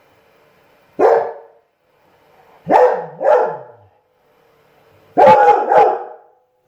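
A dog barking in short loud bursts: a single bark, then two, then a quick run of three.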